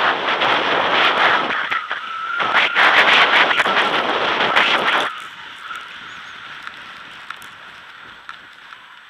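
Skis scraping and carving over packed snow with wind on the microphone during a fast downhill run. The scraping is loud in two stretches and drops to a quieter hiss about five seconds in.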